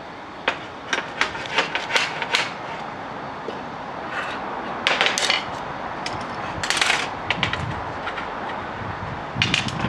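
Hammer striking small steel pieces on a steel welding table: about six quick, sharp taps in the first two and a half seconds, then a few more clusters of metallic knocks and a short scrape of metal, with another cluster near the end.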